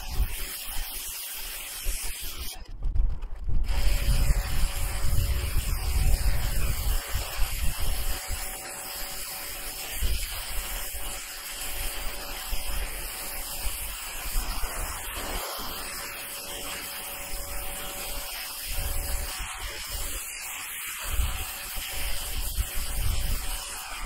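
Water jet from a Ryobi electric pressure washer's turbo nozzle hissing steadily against asphalt shingles as moss is blasted off, with a steady hum underneath. The spray breaks off for about a second about three seconds in, and low rumbling gusts run through the first several seconds.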